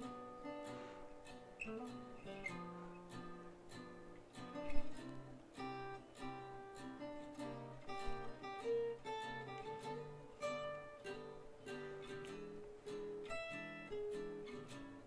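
Background music: acoustic guitar, plucked and strummed notes at a steady, moderate pace.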